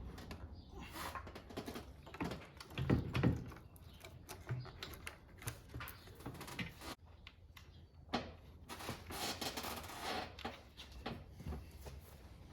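Irregular clicks, clinks and knocks of hand tools and car parts being handled during engine reassembly, with a louder thump about three seconds in.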